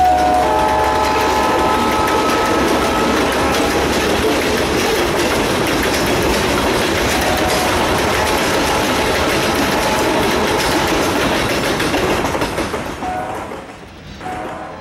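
Freight train of covered hopper cars rolling past, steel wheels running over the rails, with a few thin high squeals in the first couple of seconds. The sound fades away about twelve seconds in.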